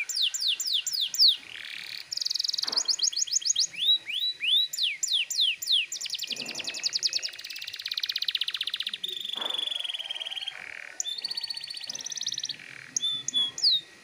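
Domestic canary singing a long, unbroken song in a strong, vigorous style: phrases of fast repeated downward-sweeping whistles give way to rapid trills and buzzy rolls, changing every second or two.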